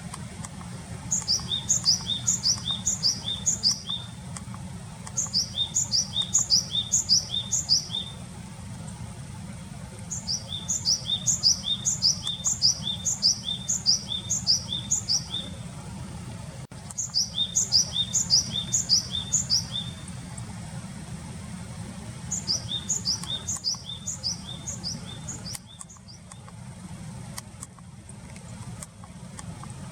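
Japanese tit singing: five phrases of a quickly repeated high two-note call, each phrase a few seconds long with short pauses between. A steady low rumble runs underneath.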